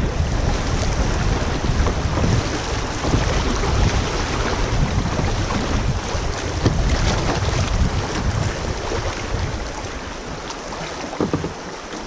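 Wind buffeting an action camera's microphone over the rush of choppy river riffles beneath a kayak. The gusty rumble eases off near the end.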